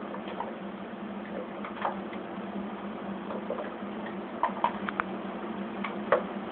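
Light scattered taps and clicks of a kitten batting a small toy mouse across a hardwood floor, its paws and claws skittering, with a cluster of quick taps a little past the middle and a sharper tap near the end. A steady low hum runs underneath.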